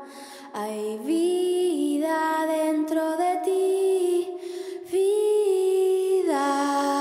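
A woman's voice singing long held notes without accompaniment, gliding smoothly from one pitch to the next, with no clear words.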